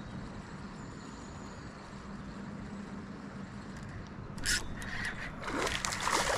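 Water splashing in short noisy bursts, once about four and a half seconds in and again more strongly near the end, over a steady low hum.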